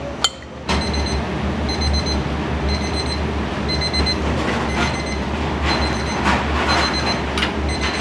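An electronic beeper sounds a high beep in short repeated groups, about once a second. Under it run a steady low hum and kitchen clatter.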